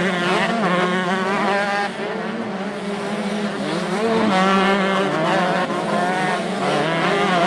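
Several motocross bikes racing together, engines revving hard, their pitch climbing and dropping again and again with throttle and gear changes.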